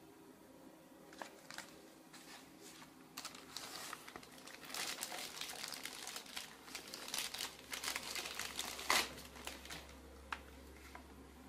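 Clear plastic bag crinkling and rustling in irregular bursts as an external hard drive is slid out of it, starting a few seconds in, with one sharp crackle near the end.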